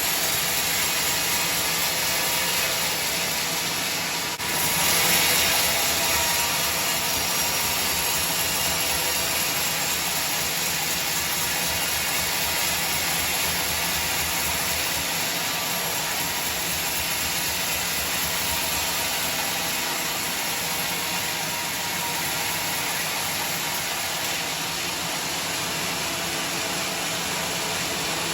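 Sawmill machinery running: a steady, loud mechanical noise, briefly dipping and then surging about four seconds in.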